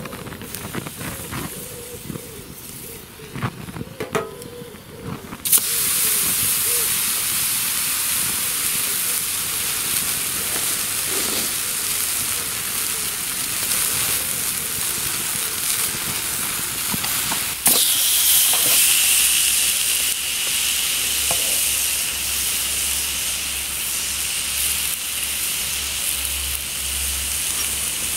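Ribeye steak sizzling on a hot steel griddle plate over a wood fire. The first few seconds hold only light crackles and knocks; then the sizzle starts suddenly, steady and loud, and gets louder again a little after halfway.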